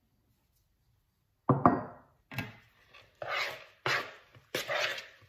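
Metal spoon stirring grated Parmesan into thick batter in a mixing bowl. After a near-silent start, a sharp knock of spoon on bowl about a second and a half in, then rhythmic scraping strokes about every two-thirds of a second.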